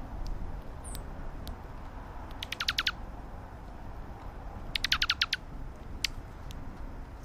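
A small bird calling twice, each a quick run of about six sharply falling notes, about two and a half seconds apart. A few sharp clicks sound between the calls over a steady low rumble.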